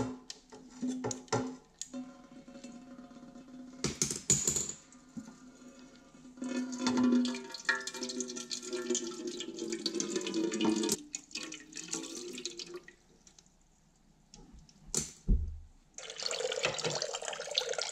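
Engine coolant draining from a 2001 Yamaha YZ250's two-stroke engine into a metal drain pan: liquid trickling and splashing into the pan, with a few knocks of the tool on the drain bolt. A heavier splashing stream comes near the end.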